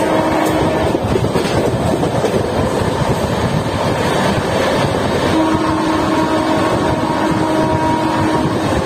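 LHB passenger train coach running at speed, heard from its open door: a steady rumble of wheels on rail and rushing air. A long, steady tone sounds from about five seconds in until near the end.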